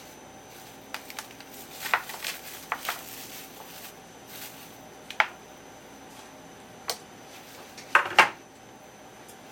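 Kitchen utensils and dishes clinking and knocking in irregular, scattered strikes over a faint steady hum, with a cluster of knocks a couple of seconds in and the loudest pair near the end.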